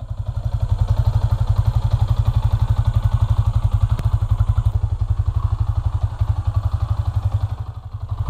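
Yamaha Sniper 150's single-cylinder engine idling, with a steady, rapid, even exhaust beat of about a dozen pulses a second.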